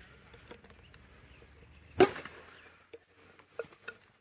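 A bat striking a plastic wiffle ball once about two seconds in, a sharp hollow crack, followed near the end by a few much fainter knocks.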